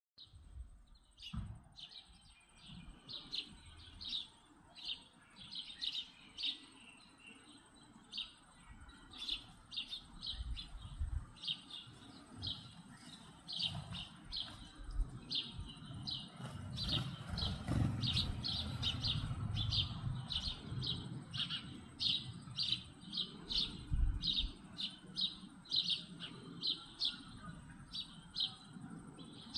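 A bird chirping over and over, a steady run of short, high chirps about two or three a second, over a low rumble.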